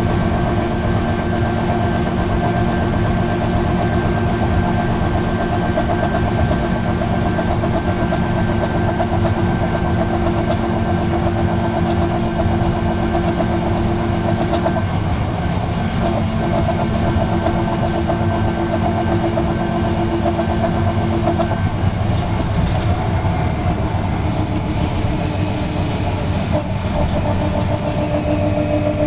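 Detroit Diesel 6V92TA two-stroke V6 diesel of a 1985 GMC RTS transit bus running steadily. The drone's pitch changes in steps a few times, about halfway through and again near the end.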